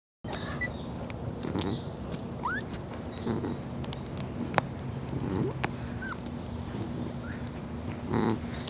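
An animal calling in short, low calls every two seconds or so, with a few brief rising squeaks and clicks, over a steady low hum.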